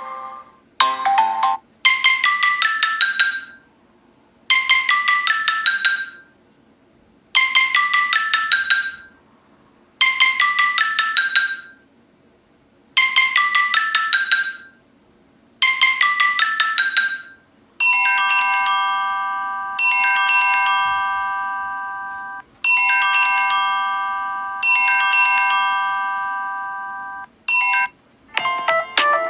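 Samsung Galaxy S7 Edge stock ringtones played one after another. First a quick run of bright notes repeats six times with short pauses. Past the halfway point a different ringtone of held, chiming chords that fade out repeats about four times, and another tune starts at the very end.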